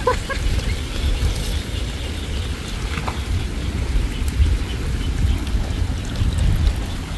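Low, uneven rumble of wind on the microphone over faint water noise from a person moving chest-deep in a canal, with one small click about three seconds in.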